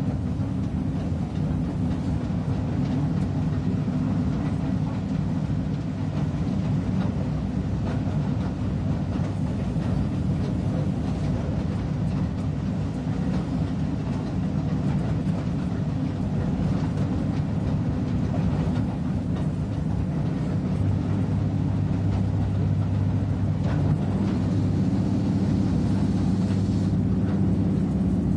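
A train running steadily along the track, heard from the driver's cab as a continuous low rumble of wheels on rail. About three quarters of the way through, a low steady hum joins in and grows stronger.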